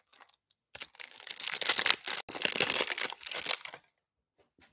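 Foil wrapper of a Panini Prizm trading-card pack crinkling and tearing as it is opened by hand, starting about a second in and running for about three seconds with a brief break in the middle.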